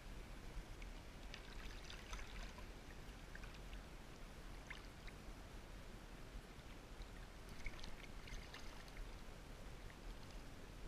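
Faint river water running, with small splashes and drips around two seconds in and again near eight seconds.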